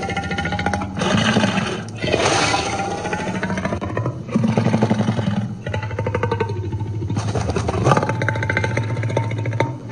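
Designed dragon sound effect: a run of about six rough roars and growls, one after another with short breaks between them. The calls are layered from big-cat and creature roars, and some glide in pitch.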